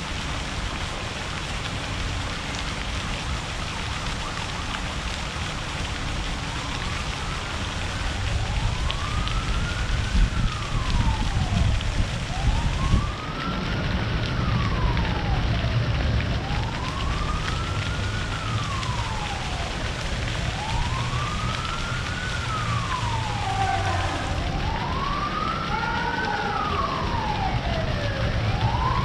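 Emergency vehicle siren wailing, its pitch rising and falling in a slow cycle about every four seconds. It fades in about a quarter of the way through over steady background noise, and a second overlapping siren joins near the end.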